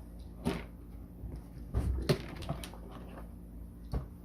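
Plastic seat of a kids' ride-on electric 4x4 being pressed into place, its pegs popping into the holes in the body: a few sharp plastic clicks and knocks, the loudest with a dull thump about two seconds in.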